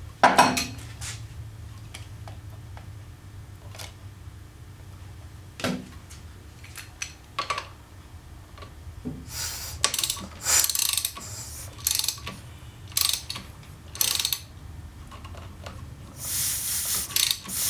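A ratchet with a T70 Torx bit turning a motorcycle engine over by hand, its spark plugs out so it turns without compression, to rotate the primary chain. Irregular clicks and short bursts of ratcheting, bunched in the middle, with a longer run of ratcheting near the end.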